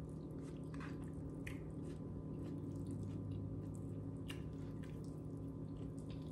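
Scattered soft, wet clicks and squishes from a burrito bowl of food handled or eaten close to the microphone, over a steady low hum.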